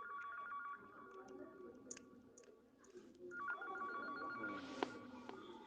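A telephone ringing with an electronic two-tone trill, two rings about three seconds apart, with a sharp click near the end of the second ring.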